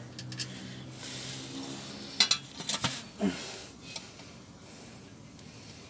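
Hand tools and metal parts clinking and clanking: a quick cluster of sharp metallic clanks a little past two seconds in, with a few more about a second later.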